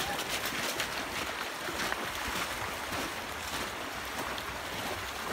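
Shallow river running over stones, with dogs splashing as they wade through the water.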